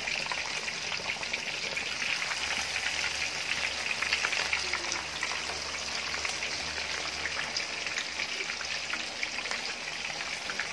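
Hot oil sizzling and crackling steadily around a pig's head being deep-fried in a pan, a dense patter of tiny pops.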